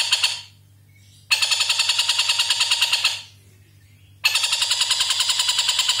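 Caged black-and-red broadbill (tengkek buto) giving its long, fast rattling 'ngekek' call of evenly spaced notes. It comes in bouts, breaking off twice for about a second.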